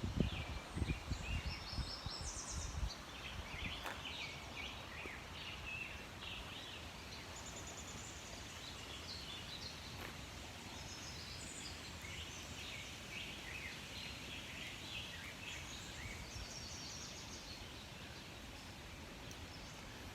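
Several small songbirds singing at once, a steady tangle of short high chirps and quick trills, over an even background rush of river water. Low thumps on the microphone in the first few seconds.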